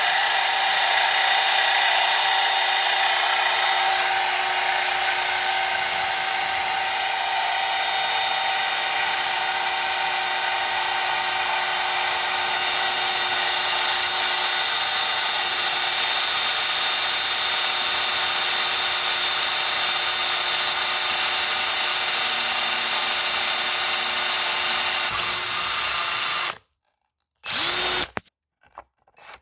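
Power drill with a diamond bit grinding steadily through wet porcelain tile, a continuous whine with a gritty grinding edge. It cuts off suddenly near the end once the bit is through, followed by one brief burst.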